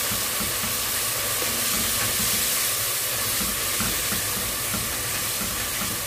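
Tomato-purée masala frying in oil in a metal pot, a steady sizzling hiss, with a spatula stirring through it as the masala is fried down.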